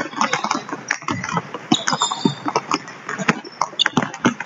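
Several basketballs dribbled at once on a hardwood gym floor: irregular, overlapping bounces, with short sneaker squeaks about two seconds in and again near the end.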